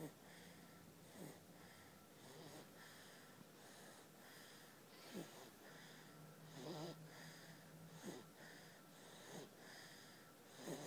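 Three-week-old baby snoring in her sleep: faint, short, squeaky snorts and wheezes, about one every one to two seconds.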